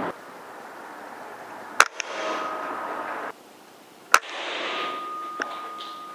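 Two PCP air-rifle shots about two seconds apart, each a single sharp crack.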